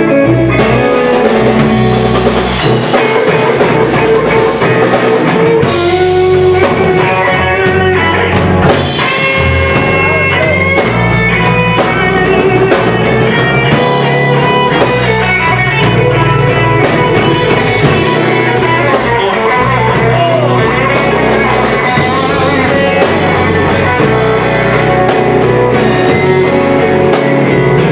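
Live blues band playing a loud instrumental slow blues: guitars over a drum kit, with bending guitar notes.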